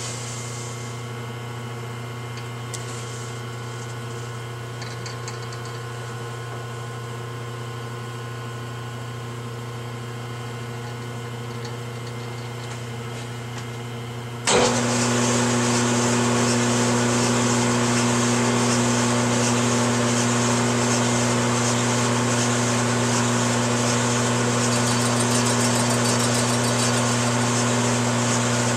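Metal lathe turning a 50cc two-stroke four-wheeler cylinder head. For the first half there is only a quieter steady hum with the spindle stopped. About halfway through the lathe switches on abruptly and runs with a louder, steady hum.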